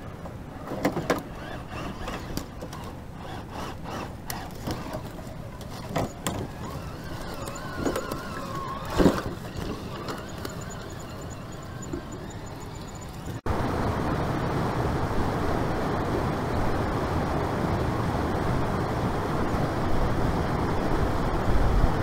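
Vanquish VS4-10 Phoenix RC rock crawler working over rocks and dead branches: scattered clicks and knocks of its tyres and chassis against wood and stone, with a brief faint motor whine, the loudest knock about nine seconds in. After a cut about halfway through, the steady rush of a fast mountain creek takes over.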